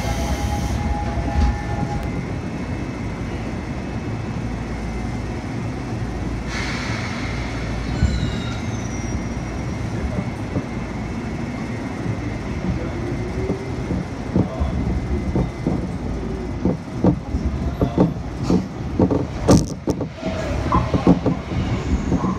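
Seoul Metro Line 2 chopper-controlled (Mitsubishi Electric) electric train heard from inside the car as it pulls away from the station and accelerates: a steady running rumble, a motor tone rising in pitch, and from about two-thirds in the wheels clicking over rail joints more and more often.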